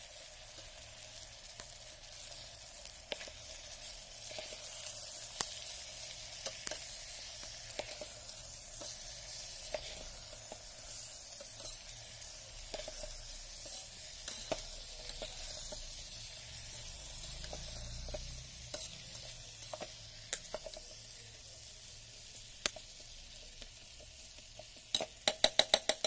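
Beans, potatoes and spices sizzling in hot mustard oil in the steel pot of an electric kettle while a metal slotted spatula stirs them, scraping and clicking against the pot. Near the end there is a quick run of six or seven sharp metal clicks.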